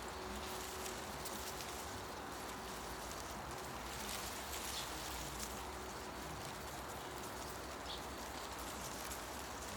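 Forest ambience: a steady wash of wind through tree leaves, with a faint short bird chirp about eight seconds in.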